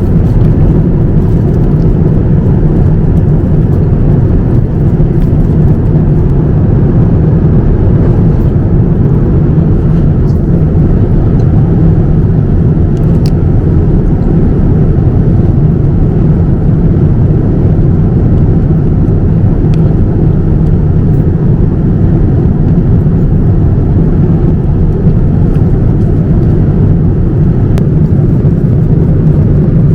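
Steady cabin noise of a Boeing 787-9 airliner in flight: a constant low rush of engine and airflow noise, with a few faint ticks.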